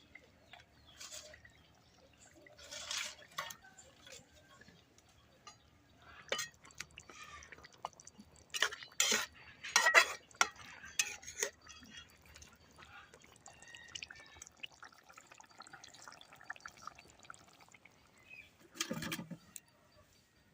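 Water sloshing and dripping in short, irregular splashes, with sharp clicks and clinks mixed in; the busiest, loudest stretch comes about halfway through.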